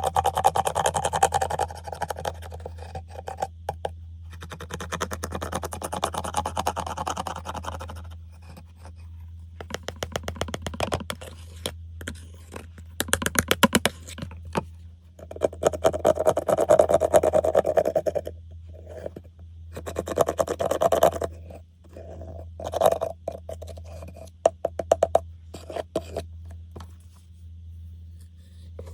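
Pressed eyeshadow being crushed and slime being squished and worked: stretches of scraping alternate with rapid trains of crackling, popping clicks. A steady low hum runs underneath.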